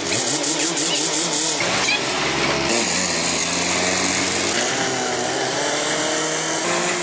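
Small motor-driven power tools running in a few short, abruptly cut shots, each with a steady motor tone whose pitch wavers briefly in the middle shot.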